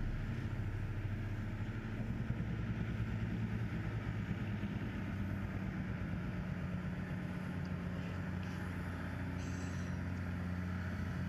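Steady low droning hum with sustained deep tones, an ambient background drone under the scene, with a few faint short clicks in the second half.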